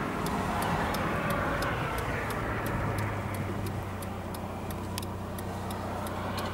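Car cabin sound of a moving car: steady engine hum and road noise, with an even ticking about three times a second, typical of the turn-signal indicator clicking as the car turns.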